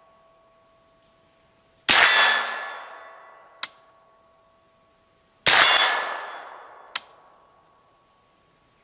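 Two suppressed shots from a CMMG Banshee 9mm pistol, about three and a half seconds apart, each a sharp report dying away in a long ringing tail. A short sharp click follows each shot about a second and a half later.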